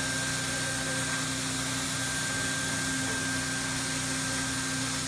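Hot-air blower of a BAK RoofOn R automatic roofing welder running steadily: a constant hiss with a steady whine.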